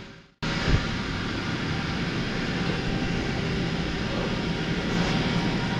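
Steady mechanical rumble with a hiss over it, cutting in abruptly after a brief silence about half a second in.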